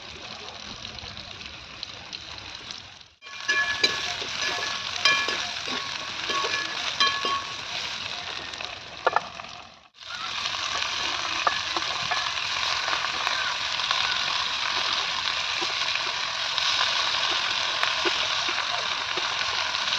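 Vegetables frying in an iron kadhai, a steady sizzle with sharp clinks and scrapes of a spoon stirring against the pan in the middle. The sound briefly drops out twice, at edits.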